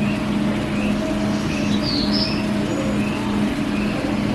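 A steady, even-pitched machine hum over a constant rushing background, with faint short chirps repeating about every three-quarters of a second and one brighter, higher chirp about two seconds in.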